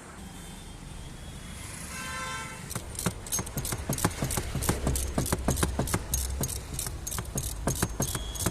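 Rapid, irregular metallic clicking and clinking, like metal parts and tools being handled, starting about three seconds in over a low rumble. A brief pitched tone sounds just before the clicking begins.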